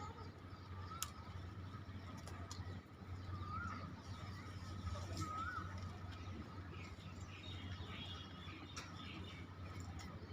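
Faint bird chirps, a few short rising notes and some higher warbling, over a low steady hum, with scattered sharp clicks.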